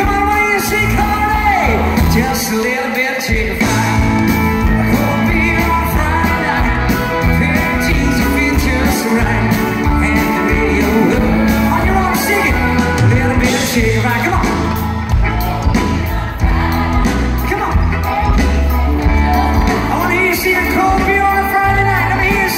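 Live country band playing with a male lead vocal, backed by electric guitars, bass, keyboard, drums and backing singers, heard from the audience in a large hall.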